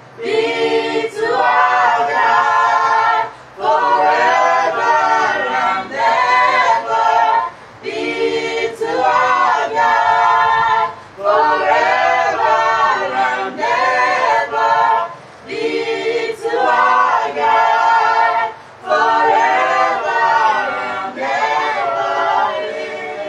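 A small group of men and women singing a worship song together a cappella, in phrases of a few seconds with short breath pauses between them.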